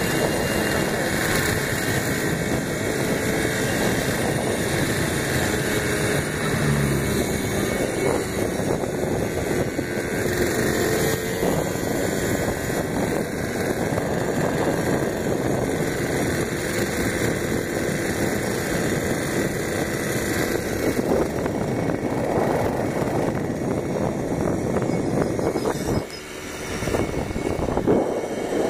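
Moped running along the road, its engine mixed with steady wind rushing over the phone's microphone; the noise dips briefly near the end.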